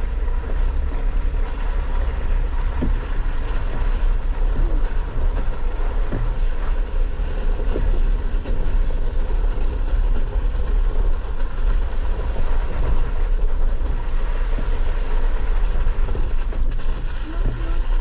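Off-road vehicle crawling over a bumpy dirt trail: a steady low rumble of engine and tyres.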